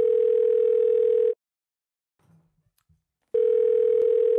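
Telephone ringback tone, the tone a caller hears while the called phone rings. A steady tone sounds, breaks off about a second in, and starts again after a gap of about two seconds.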